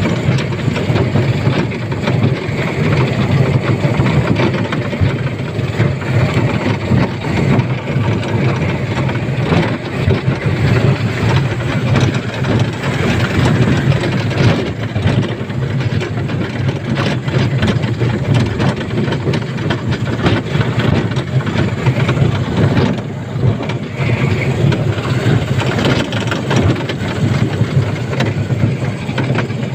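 Running noise of an elevated sky train heard from inside the car: a steady low rumble, with a few brief higher creaking squeals from the moving train.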